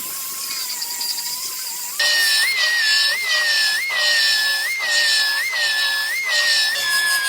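Grinder dressing the B-pillar welds: a steady high whine that jumps louder and higher about two seconds in, then dips and recovers roughly every three-quarters of a second as the tool is worked against the seam.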